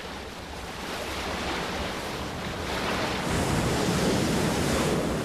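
Ocean surf breaking and washing onto a beach, swelling louder about halfway through.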